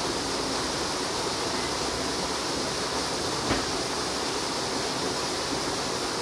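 Steady, even rushing noise, with a single short knock about three and a half seconds in.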